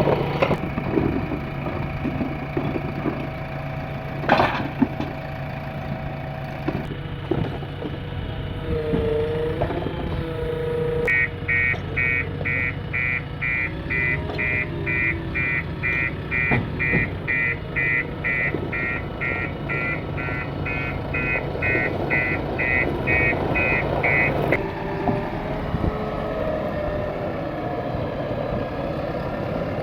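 Diesel engines of a backhoe loader and trucks running steadily, with a sharp knock about four seconds in. About eleven seconds in, a vehicle's reversing alarm starts beeping steadily, about three beeps a second, and stops some thirteen seconds later.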